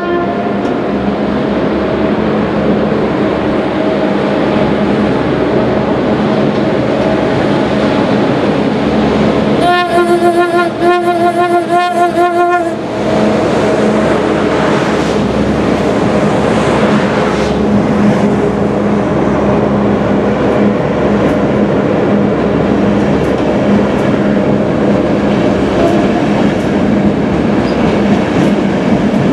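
OSE Class 220 diesel-electric locomotive hauling an Intercity train, its engine running with a steady hum as it approaches and passes. It sounds its horn for about three seconds, about ten seconds in. Then the coaches roll by with steady wheel rumble and clatter.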